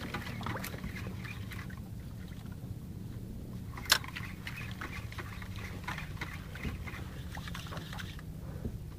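Sea water sloshing against a small fishing boat's hull over a steady low hum, with scattered small ticks and one sharp click about four seconds in.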